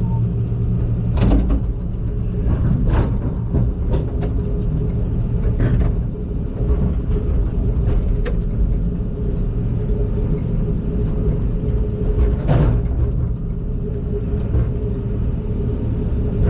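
Excavator's diesel engine running steadily, with a few sharp knocks or clanks from the machine.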